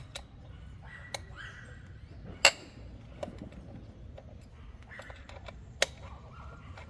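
Sharp, separate clicks and clinks of a 6 mm Allen key working the seat-mounting screws of an electric dirt bike, the loudest about two and a half seconds in and another just before six seconds.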